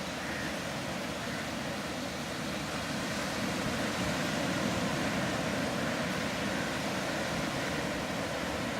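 Sea surf: a steady rush of waves, swelling a little about halfway through.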